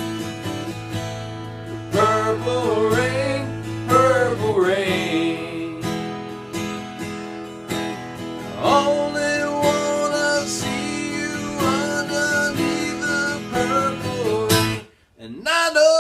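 Acoustic guitar strummed in a steady rhythm, with a man's wordless sung melody rising and falling over it. The sound cuts out briefly near the end, then the singing resumes.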